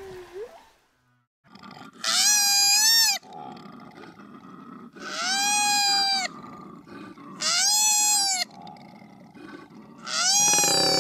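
An animal calling loudly four times, each call about a second long and held on one slightly arched pitch, with a few seconds between calls. A gliding whale-song note fades out at the very start.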